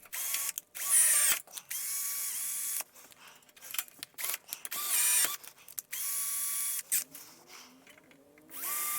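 Electric drill run in several short bursts, clearing out rivet holes in sheet metal so a rivet will pass through. Each burst is a high whine that speeds up when the trigger is pulled and slows as it is released, with clicks and knocks between the bursts.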